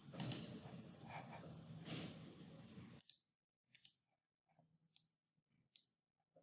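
Computer mouse clicking: a few short, sharp clicks, three of them about a second apart in the second half, over faint room hiss that cuts out about three seconds in.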